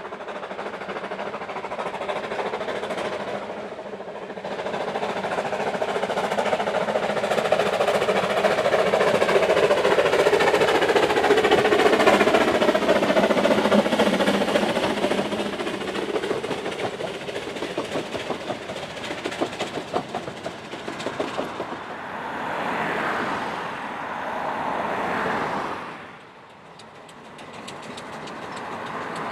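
Ffestiniog Railway narrow-gauge steam train passing close by. The sound builds to its loudest about ten to fourteen seconds in, then the carriage wheels click rhythmically over the rail joints, and it fades near the end.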